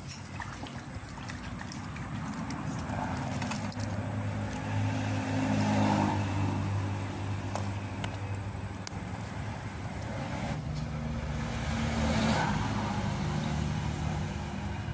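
Motor vehicle engine noise with a steady low hum that swells twice, about six seconds in and again around twelve seconds, as vehicles pass by.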